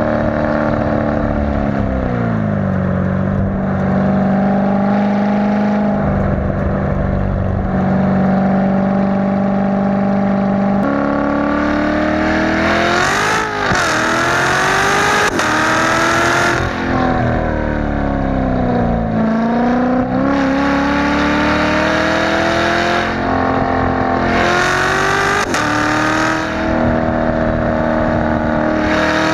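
Supercharged 6.2-litre LT4 V8 of a C7 Corvette Z06 with an X-pipe exhaust, heard from inside the cabin. It cruises at a steady note for about ten seconds, then accelerates hard, its pitch climbing and dropping back at each upshift several times.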